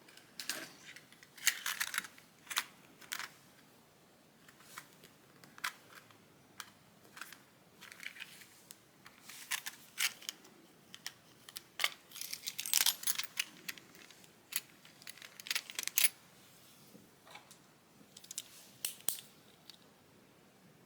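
Ear-cleaning tools scratching and clicking in a person's ear, in short irregular bursts with pauses between.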